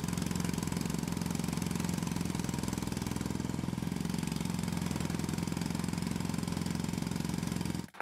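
Jackhammer sound effect: a fast, steady mechanical hammering with a constant hum under it, cutting off suddenly near the end.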